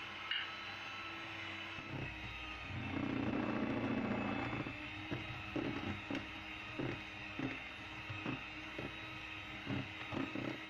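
Electric hand mixer running steadily, whipping eggs and sugar for a génoise sponge until the mixture doubles in volume and turns pale. From about halfway the beaters knock against the side of the bowl again and again.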